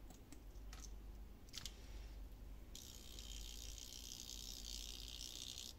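A few light handling clicks as a handmade fishing lure is worked in the hands. Then, about three seconds in, a steady high hiss starts abruptly as the lure sits in a bucket of water and stirs it.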